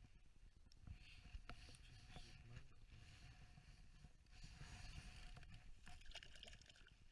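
Near silence: a faint low rumble with a few soft clicks and rustles as gloved hands handle a freshly caught perch over the ice hole.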